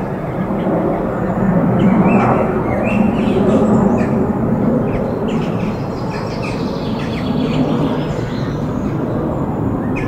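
Birds chirping in short scattered notes over a steady low rumble of background noise.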